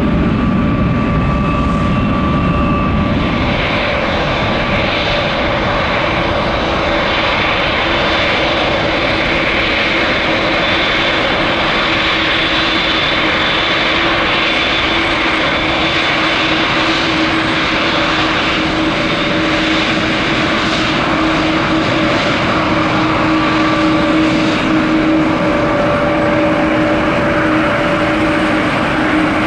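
Jet airliner engines running at low thrust on the ground: a steady roar with several high, even whining tones and no spool-up.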